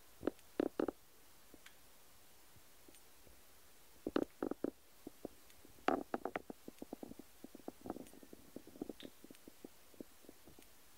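Kittens moving about close to the microphone: irregular clusters of soft taps and clicks from small paws and claws, with a dense run of quick little steps from about six to nine seconds in.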